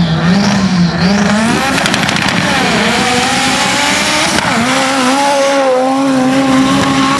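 Turbocharged Toyota 4A-GE 1.6 four-cylinder in a Suzuki Samurai drag truck revving up and down at the start line, then launching and pulling hard, its pitch climbing and then held high and steady as it runs down the dirt strip.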